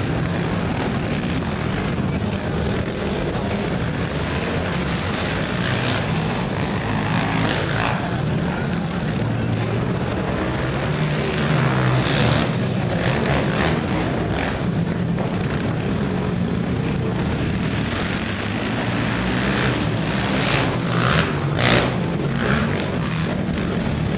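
Several ATV (quad) engines racing on a dirt motocross track, a dense steady engine noise that swells louder about halfway through and again near the end.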